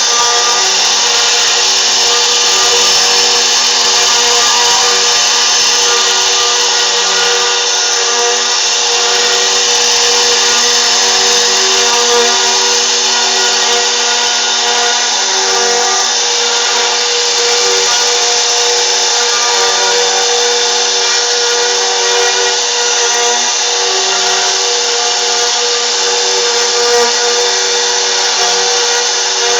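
CNC router spindle running steadily while carving a 3D relief, a constant whine of several tones over cutting noise.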